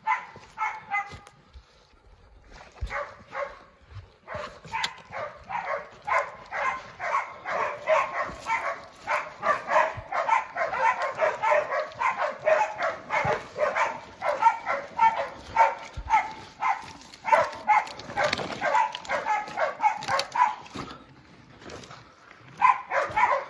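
Pig dogs barking rapidly and without let-up, about three barks a second, as they hold a wild pig at bay (bail barking). The barking starts a few seconds in, breaks off briefly near the end, and starts again.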